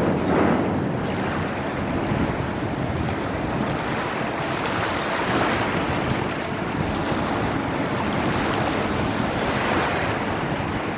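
Wind and small waves washing onto a gravel beach: a steady rushing noise that swells and eases every few seconds, with wind buffeting the microphone.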